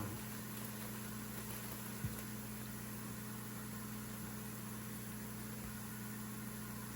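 A low steady hum with an even hiss over it, and a single short click about two seconds in.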